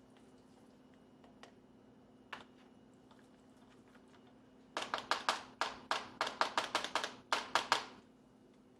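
Sharp taps of a hard object on kitchenware: a single tap, then about two and a half seconds later a quick run of about fifteen taps over some three seconds.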